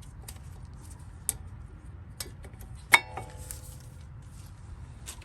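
Light metal clicks and clinks of brake pads being fitted into the caliper bracket, with one sharp ringing metallic clink about three seconds in.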